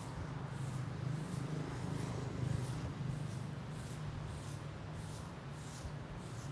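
Sea waves washing on a sandy beach with wind, the wind making a steady low rumble on the microphone.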